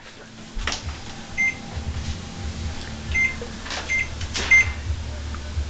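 Microwave oven keypad beeping as its buttons are pressed to enter a time: one short high beep, then three more about two seconds later, spaced well under a second apart. A few soft clicks and a low steady rumble lie underneath.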